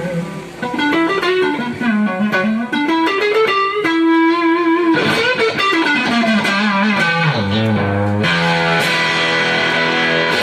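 Global Strat-style electric guitar played solo: single-note melodic runs, a note held for about a second about four seconds in, then a fuller, brighter passage with wavering pitch, dropping to low notes and ending on a bright sustained sound near the end.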